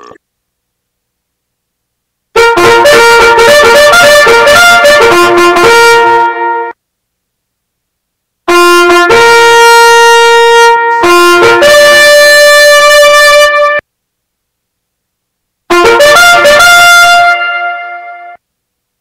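Three short brass-instrument sound-effect stings, each a quick run of notes ending on a held note, separated by dead silence; the last one fades out.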